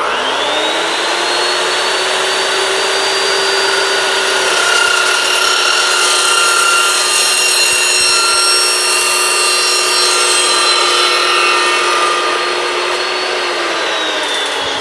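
Evolution S355MCS 14-inch dry-cut metal chop saw spinning up with a quickly rising motor whine, then its blade cutting through an exhaust pipe on a 15-degree miter with a steady whine and harsh hiss. Near the end the motor is let off and winds down, its pitch falling.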